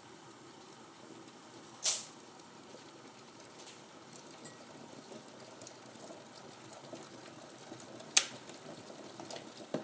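Kettle boiling: a faint, steady rumble of water, broken by two sharp ticks, the louder about two seconds in and the other near the end, with a few lighter ticks between.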